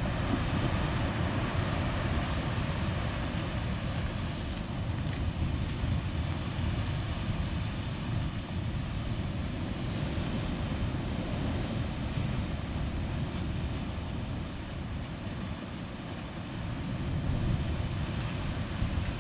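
Steady roar of ocean surf, with wind rumbling on the microphone.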